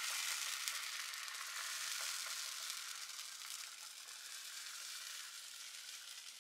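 Thin saru chakli batter sizzling in a hot nonstick frying pan, the sizzle slowly fading a little.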